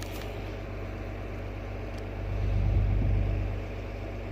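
John Deere 4440's six-cylinder diesel tractor engine running at a steady idle with a low drone, swelling louder for about a second in the middle.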